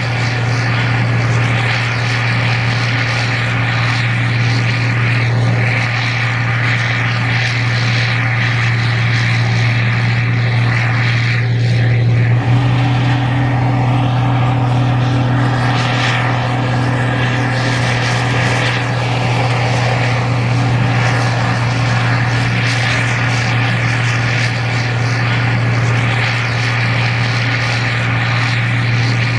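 Gleaner R52 combine running steadily while harvesting corn: a loud, even engine and machinery drone with a strong low hum. About twelve seconds in, the tone shifts slightly.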